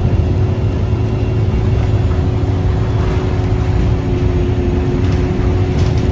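A moving bus heard from inside the passenger cabin: a steady low rumble of engine and road noise with a constant hum running through it.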